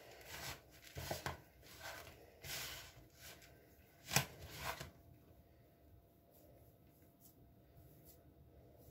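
Hands mixing and squeezing a crumbly ground almond and peanut filling in a plastic bowl: a run of short, soft rustling swishes, with a sharper one about four seconds in, then near quiet for the rest.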